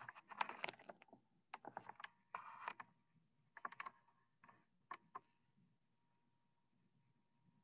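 Several short bursts of rapid clicking and rattling, about six clusters in the first five seconds, then quiet.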